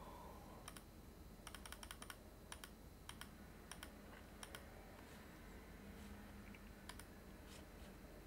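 Faint clicking of computer keys: a quick run of keystrokes about one and a half seconds in, then single clicks scattered every second or so over a low steady hum.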